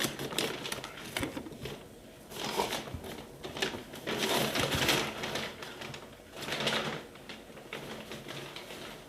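Packaging being handled while unboxing: irregular rustling and crinkling in several bursts, with scattered clicks and knocks.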